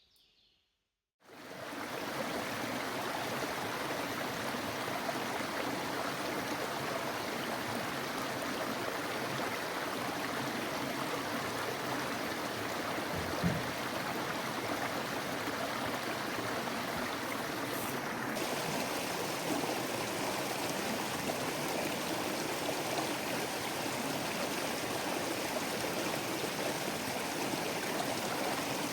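Steady rain falling, an even hiss of water that starts abruptly about a second in.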